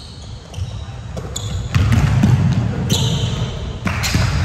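Basketball being dribbled on a gym floor during a game, with a series of thuds and short high squeaks.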